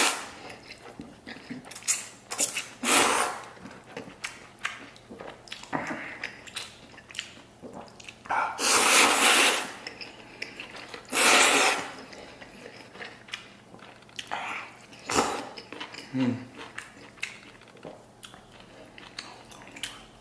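A man noisily slurping noodles from spicy beef soup, sucking them up off chopsticks. There are about five loud slurps, the longest about a second and a half near the middle, with small clicks between.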